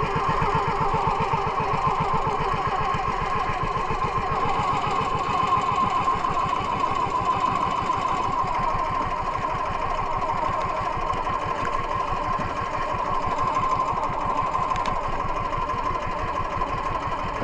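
Small engine of a motorized outrigger boat running steadily at cruising speed, its rapid even firing pulses unchanging throughout, with the hull pushing through choppy water.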